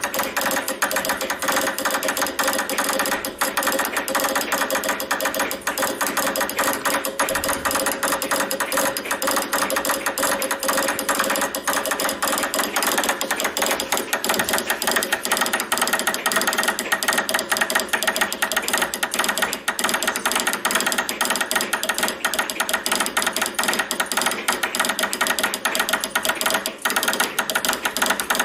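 Morse code hand-sent at high speed on a straight telegraph key: rapid, continuous clicking from the key as it is worked.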